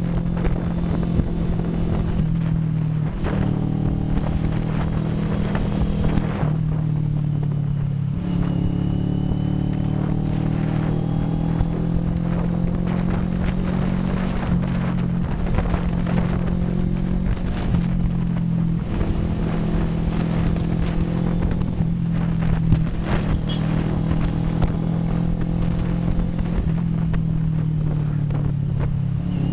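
CFMoto 400NK's parallel-twin engine running under way, its note stepping and sliding up and down in pitch several times as the throttle and gears change, with wind buffeting the microphone.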